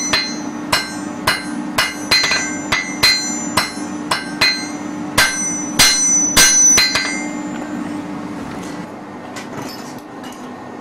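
Blacksmith's hammer forging red-hot iron on an anvil, about two blows a second, each with a metallic ring. The hammering stops about seven seconds in, leaving a steady low hum.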